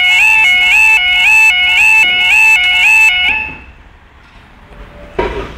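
Level crossing warning alarm sounding a repeating warbling two-tone call, each call stepping up in pitch, about twice a second; it cuts off about three seconds in. A brief knock near the end.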